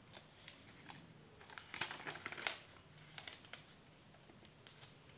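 Faint rustle of paper textbook pages being turned, with a few soft clicks and a louder crackling flurry of paper about two seconds in.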